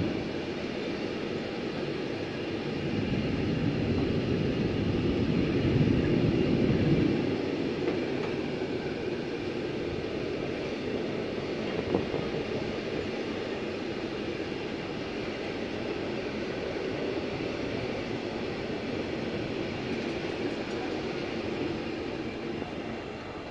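Covered double-deck car-transporter freight wagons rolling past on the track, a steady rumble and hiss of wheels on rail. It swells for a few seconds early on and has a single sharp knock about halfway through.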